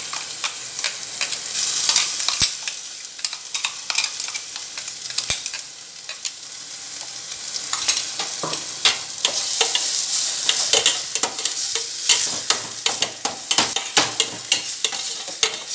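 Onion, tomato and freshly added green masala paste sizzling in oil in a stainless steel pot, with a steel slotted spoon scraping and clicking against the pan as it is stirred. The spoon clicks come thicker and faster in the second half.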